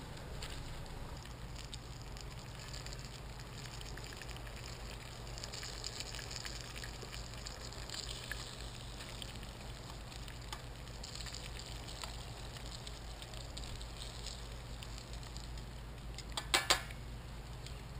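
Battered fish pieces frying in hot oil on a propane burner: a steady crackle and sizzle over the low rumble of the burner flame. About a second and a half before the end, metal tongs clink sharply twice against the pan.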